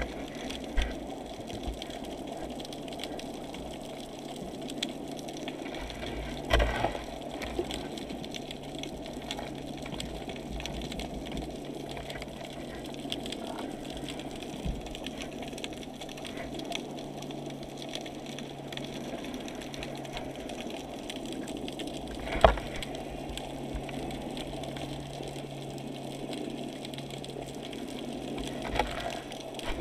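Muffled underwater noise heard through a GoPro's waterproof housing: a steady wash of water sound with a low steady hum under it. A few sharp knocks break through, the loudest about 22 seconds in and another about six and a half seconds in.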